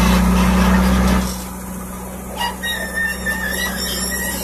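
Diesel engine of a JCB backhoe loader running while it digs and loads soil. The engine is louder for about the first second, then drops lower. A thin, faint high squeal runs through the second half.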